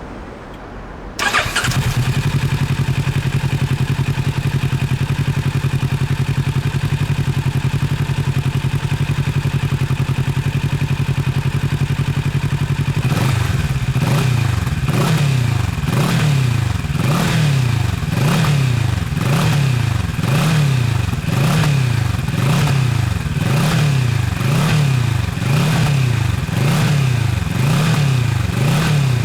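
Kawasaki Z650RS parallel-twin engine breathing through a Trick Star full exhaust system, starting about a second in and idling steadily. About halfway through it is blipped repeatedly, the revs rising and falling roughly once a second.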